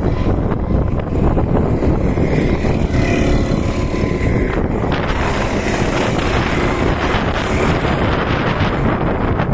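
Go-kart engines running as racing karts pass on the track, heard through heavy wind buffeting on the microphone.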